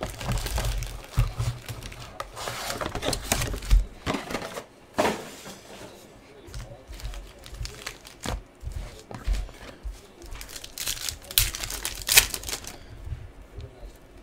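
Cardboard hobby box and foil trading-card pack wrappers being handled, crinkling in irregular bursts with soft bumps, and a pack wrapper being torn open near the end.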